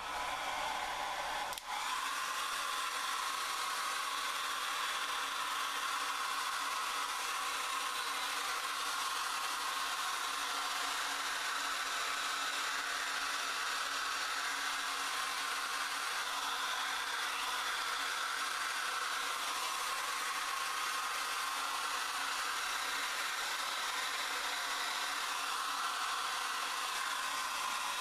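Domestic hand-held hair dryer switched on and running steadily at one setting: an even rush of air with a motor whine, blowing over wet acrylic paint on a canvas.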